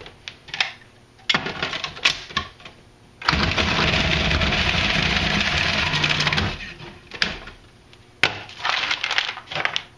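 Food processor motor running for about three seconds, starting about three seconds in, chopping fresh cranberries and raisins pressed down the feed tube, then cutting off. Before and after it, plastic clicks and knocks as the feed tube and pusher are handled.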